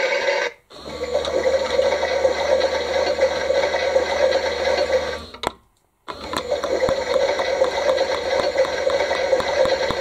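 Bosch toy washing machine running its wash cycle: a steady whirring wash sound with a watery swish as the drum turns. It cuts out briefly about half a second in and again for about half a second around five and a half seconds in, then resumes.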